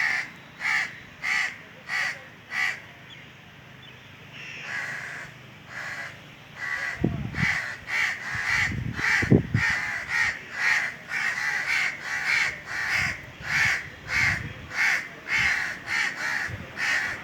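Crows cawing over and over in short, harsh calls: a quick run of five, a brief lull, then a steady series of about two caws a second. A few low bumps come partway through.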